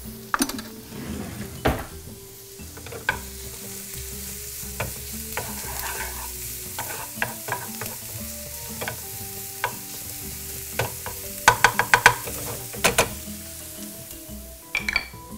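Diced red onion and garlic sizzling in butter in a nonstick frying pan, stirred with a wooden spoon that scrapes and taps against the pan. About three-quarters of the way through comes a quick run of taps.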